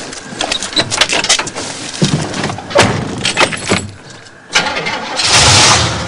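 An old convertible car, with clicks and rattles, then its engine starting: a loud burst of engine noise comes in about four and a half seconds in.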